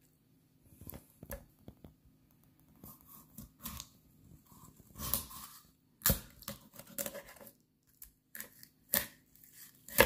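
Chef's knife cutting a raw quail in half on a wooden cutting board, through skin and small bones. There are several scattered sharp knocks, the loudest about six seconds in and near the end.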